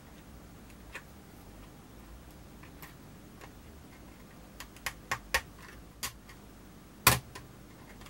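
Metal tweezers clicking and tapping against a plastic model kit part and the metal tubing being pushed into it: a few irregular sharp clicks, bunched about five seconds in, with the loudest one near the end.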